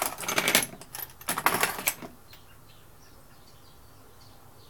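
Metal hand tools clinking and rattling as they are rummaged through, for about two seconds, then only faint room noise.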